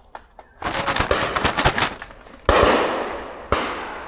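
Two shotgun shots about a second apart, each sudden and loud with a long echoing tail. Before them comes a stretch of rapid crackling and snapping, like someone pushing through dense rhododendron branches.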